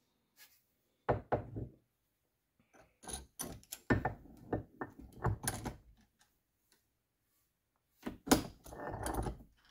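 Knocks and clunks of an axe being reset in a steel bench vise and the vise handle worked to clamp it. They come in three short bouts: about a second in, from about three to six seconds, and again near the end.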